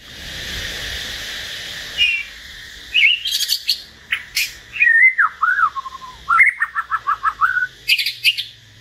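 Caged hill myna and white-rumped shama singing. Clear whistled notes glide up and down, there is a quick run of about seven falling notes, and a few short harsh bursts are mixed in. A steady hiss fills the first two seconds.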